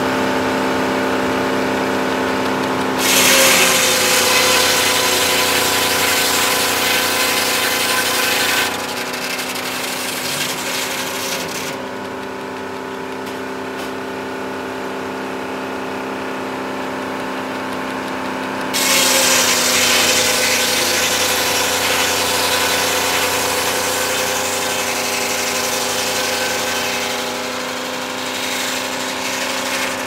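A homemade circular sawmill with an engine running steadily, its big circular blade ripping through a log in two long cuts: the first about 3 seconds in, the second about 19 seconds in. The engine note sags briefly as each cut takes the load, and between cuts the engine and blade run free.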